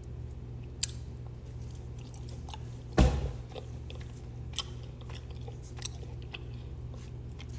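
A person chewing and biting into rotisserie chicken close to the microphone: soft wet clicks and one louder thud about three seconds in, over a steady low hum.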